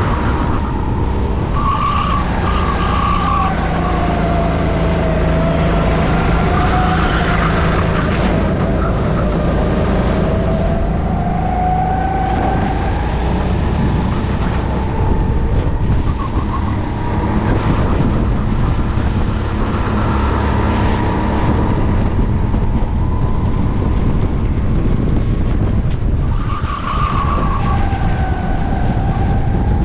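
Onboard a racing kart: its engine runs hard, the pitch sagging and climbing over several seconds at a time as it slows for corners and accelerates back out.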